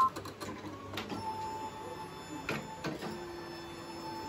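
Brother Innovis V3 embroidery machine starting up: a short beep as the touch screen is pressed, then the embroidery unit's motors whirr with a steady whine and a few clicks as the carriage moves to its start position.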